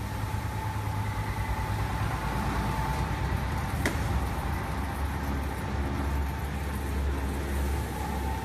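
Thin-blade slitter scorer for corrugated cardboard running: a steady mechanical hum with a low rumble and a constant thin whine. One sharp click about four seconds in.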